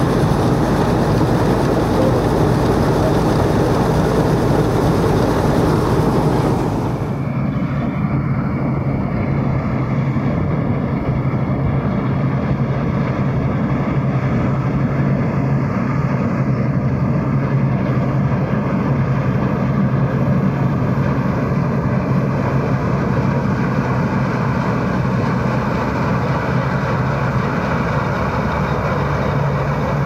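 Fortschritt E514 combine harvester running at work. At first it is heard close on board, a loud, bright rush of machinery and of wheat pouring from the filling auger into the grain tank. After about seven seconds it changes to a steadier, duller diesel drone with a low hum as the combine cuts standing wheat.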